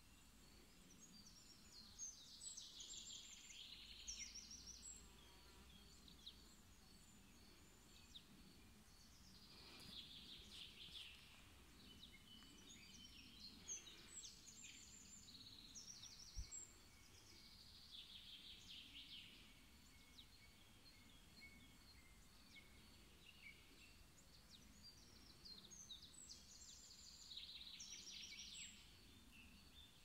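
Songbirds singing faintly: a trilled phrase of rapid notes repeats every few seconds, with scattered chirps between the phrases.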